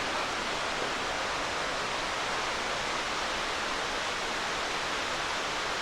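Steady rush of a nearby waterfall, an even hiss of falling water that holds at one level.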